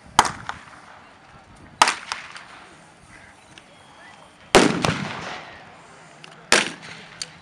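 Rifles firing blank rounds: four single shots spaced about two seconds apart, the third the loudest with a long echoing tail, and a fainter pop near the end.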